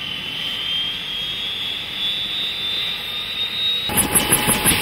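Turbine helicopter spooling up: a steady rush with a high whine that slowly rises in pitch. About four seconds in, the rhythmic beat of the spinning two-bladed main rotor takes over.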